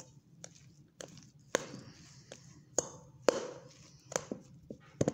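A metal spoon knocking and scraping against a stainless steel mixing bowl as cooked potato is mashed and stirred, about ten irregular knocks.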